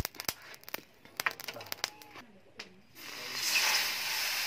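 A red-hot forged rebar sword blade being quenched in a water trough: a loud steam hiss starts about three seconds in and cuts off suddenly. Before it comes a run of sharp clicks.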